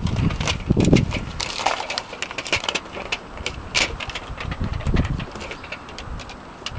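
Scattered clicks, knocks and rattles of hands and loose metal parts being handled inside an opened van door, with a heavier thump about a second in.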